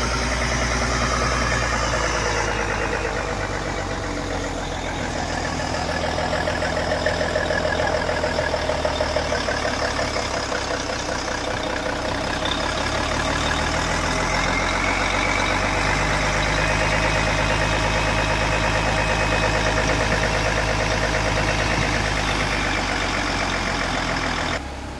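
Mercedes-Benz fire engine's diesel engine running steadily as it pumps foam, under a continuous rushing hiss from the foam jet. The sound drops suddenly just before the end.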